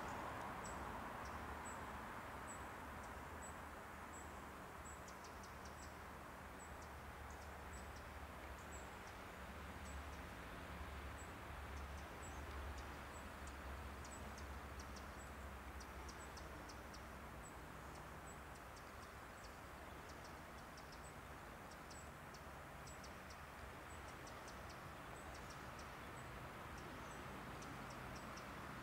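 Faint outdoor ambience: a steady low hum and hiss, with a small high tick repeating about every two-thirds of a second and quick clusters of high clicks or chirps from about five seconds in.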